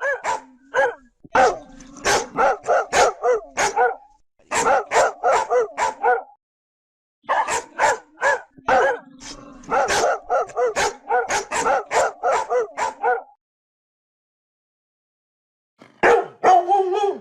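Large dogs barking in rapid runs of several barks a second, in bouts broken by short pauses, with a longer silence about three-quarters of the way through before a final bout.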